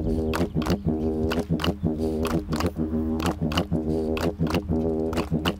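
Didgeridoo played in a continuous low drone, with sharp rhythmic accents about three times a second.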